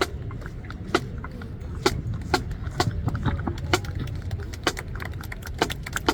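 Irregular sharp taps and clicks, about one or two a second, over a steady low rumble.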